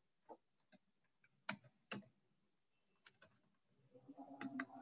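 Near silence broken by about six faint, scattered clicks from a computer's keys and mouse during data entry. A faint low murmur begins near the end.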